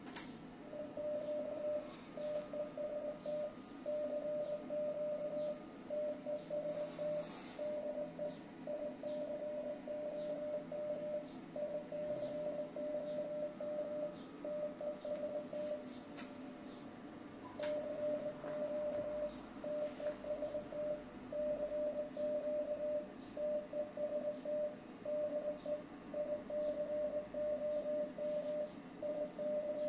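A radio transceiver's CW sidetone: a steady mid-pitched beep keyed on and off in Morse dots and dashes, with a pause of about three seconds around the middle. It is the sign of the rig transmitting CW into the linear amplifier.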